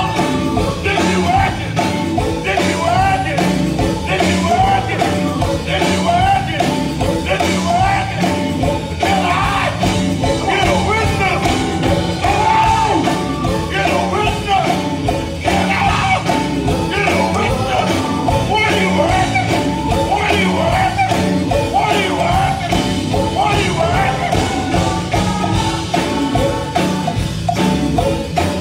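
Male gospel quartet singing lead and harmony with a live band of electric guitar and drums, amplified through a church PA.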